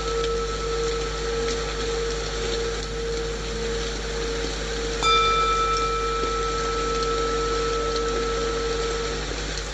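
Steady rain white noise under a sustained singing-bowl hum, with one singing bowl struck about five seconds in and ringing out over several seconds.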